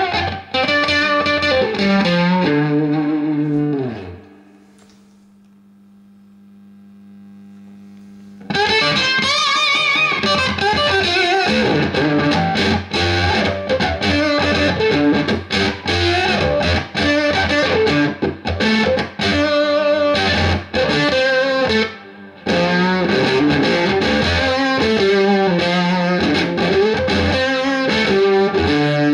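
Electric guitar played through a BYOC octave fuzz pedal, a clone of the Roger Mayer Octavia, into a Marshall JCM2000 DSL401 valve combo: thick fuzzed lines with an added octave-up tone. About four seconds in the notes die away, leaving only a steady amp hum, and the playing starts again at about a third of the way through.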